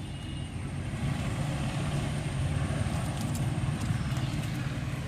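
A motor vehicle passing on the road, its engine and tyre rumble swelling from about a second in and easing slightly near the end.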